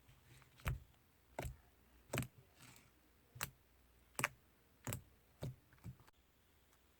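Black slime being squeezed and pressed by hand, giving about eight sharp clicking pops at an uneven pace of roughly one every two-thirds of a second.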